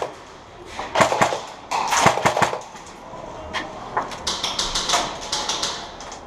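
Airsoft gun shots: a few sharp snaps about a second and two seconds in, then a quicker string of lighter clicks later on.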